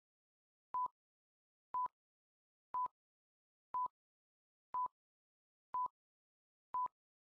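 Countdown timer sound effect: a short electronic beep once a second, seven times, each beep the same pitch with a faint click at its start and end.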